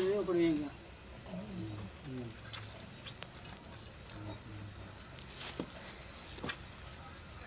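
Crickets chirping, a continuous high trill. A few faint clicks and a soft hum of a voice in the first two seconds.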